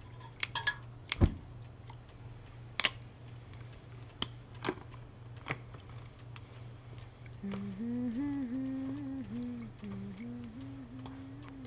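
A woman humming a tune in small pitch steps from about seven and a half seconds in, over a steady low hum. Before that come a handful of sharp clicks and knocks, the loudest a knock a little over a second in.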